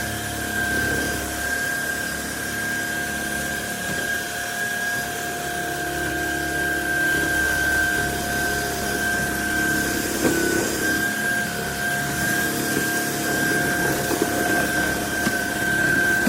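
Cordless stick vacuum cleaner running steadily, its motor giving a constant high whine over the rush of suction.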